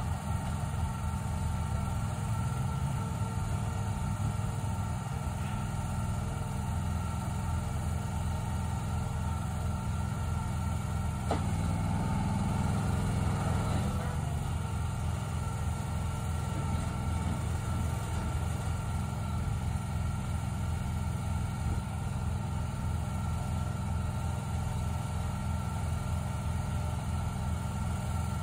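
The engine of a shed-delivery truck and trailer runs steadily under a faint steady whine while the remote-controlled trailer slides a shed off its deck. The engine swells louder for a couple of seconds about halfway through.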